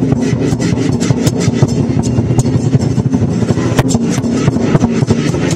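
Lion dance percussion: a large drum beaten in fast, dense rolls with cymbals clashing over it, loud and unbroken.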